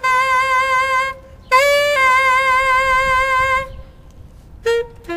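Solo saxophone playing long held notes with a slow vibrato. One note breaks off about a second in, a second is held for about two seconds, and a short note comes near the end.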